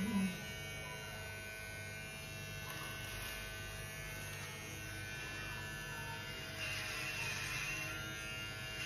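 Electric hair clippers running with a steady buzz as they cut through hair. The buzz grows a little louder and rougher about two-thirds of the way in.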